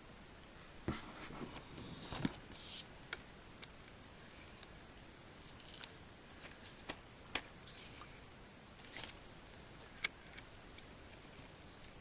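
A quiet background broken by scattered small clicks and short rustles, a few of them sharper knocks.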